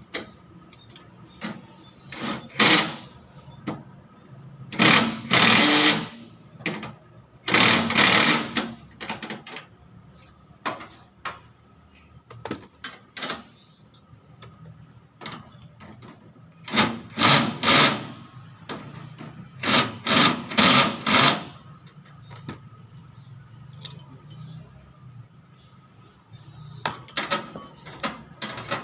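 Cordless impact wrench hammering in about five short bursts, each a second or so of rapid blows, as it drives the mounting bolts of an outdoor air-conditioner unit into its wall bracket. Small metal clicks and handling noises come between the bursts.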